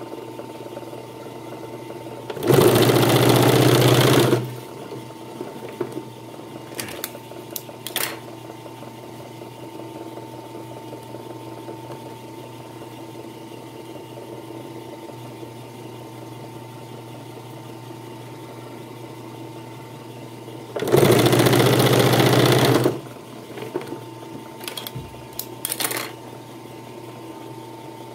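Puritan three-needle industrial sewing machine stitching leather in two short runs of about two seconds each, a few seconds in and again near the end, with a steady hum and a few light clicks in between.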